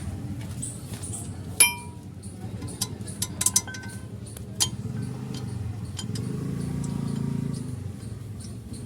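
Metal parts and tools clinking while a brake caliper and its bolt are fitted. There is one sharp, ringing clink about a second and a half in, a quick run of lighter clinks around three to three and a half seconds, and one more near four and a half seconds.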